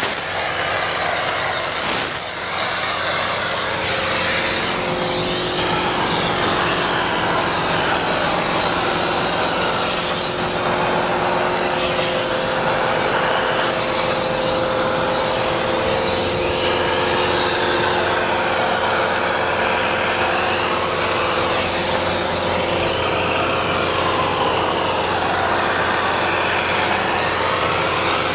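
Spray foam gun hissing steadily as open-cell foam is sprayed into wall cavities, with a steady machine hum underneath.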